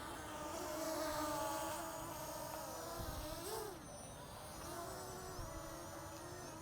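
ZLL SG107S brushless quadcopter's propellers buzzing in flight, the pitch wavering up and down as the motors adjust, with a short swell in pitch about three and a half seconds in.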